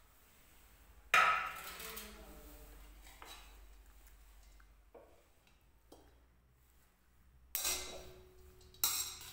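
Metal spoon knocking and scraping against a metal kadhai while turning a heap of grated carrots: a sharp clank about a second in, a few softer knocks, then two more clanks near the end, one with a brief metallic ring.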